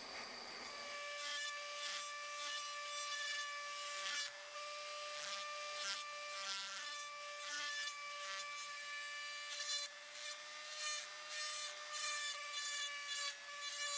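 Small rotary tool running with a steady whine, its grinding bit scraping on and off against the brazed seam of a copper and brass spoon lure. In the first second the hiss of a small gas torch cuts off.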